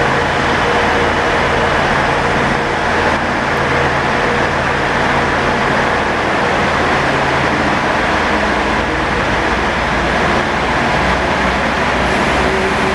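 Class 197 diesel multiple unit pulling slowly into a platform, its diesel engines giving a steady low drone.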